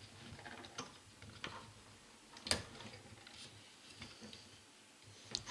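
Faint, scattered metallic clicks from the SKS rifle's parts being handled while its gas switch is set and the gas piston assembly is fitted, with one sharper click about two and a half seconds in.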